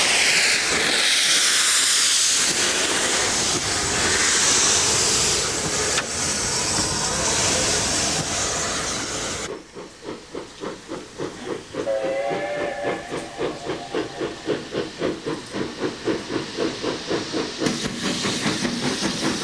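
Steam locomotive: a loud steady hiss of escaping steam, then, about halfway through, a run of exhaust chuffs that gradually quicken as it pulls away. A short whistle blast sounds a couple of seconds after the chuffing begins.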